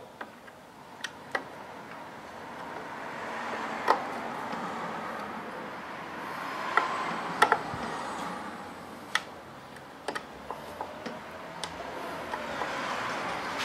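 Hand screwdriver working the screws of a control board on a Tesla drive unit's inverter: scattered sharp clicks and taps of the tool on screws and metal, over a soft hiss that swells and fades.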